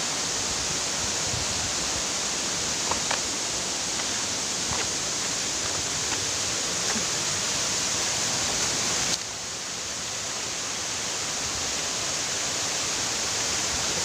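Waterfall rushing in a steady, loud roar of falling water. It drops a little in level suddenly a little past halfway, then slowly builds back.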